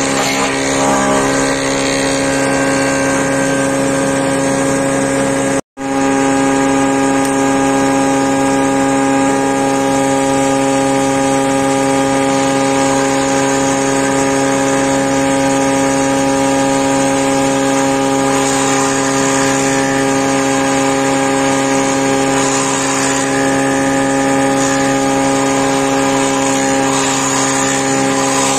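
Horizontal wood boring machine running with a steady hum as its drill bit bores into a clamped wooden beam. The sound cuts out abruptly for a split second about six seconds in.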